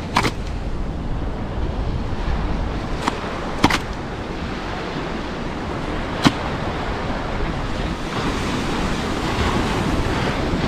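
Sea surf washing onto a beach, a steady rushing noise, with a few short sharp clicks.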